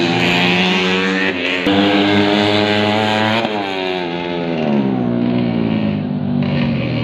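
Tuned Yamaha Jupiter motorcycle engine, bored out to 130cc, running hard at high revs. About halfway through the revs fall away steadily as the throttle eases.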